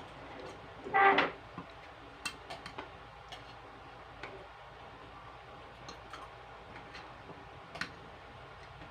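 Close-up eating sounds of boiled okra: one short pitched mouth sound about a second in, then scattered wet mouth clicks and smacks from chewing.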